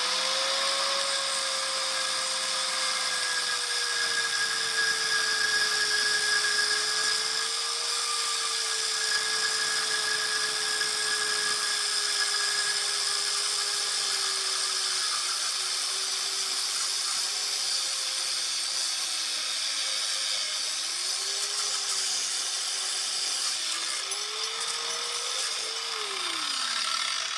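A power tool with a cutting disc spins up and runs steadily for the whole stretch while cutting, with a high motor whine and a cutting hiss over it. The motor's pitch sags under load a few times near the end before the tool stops.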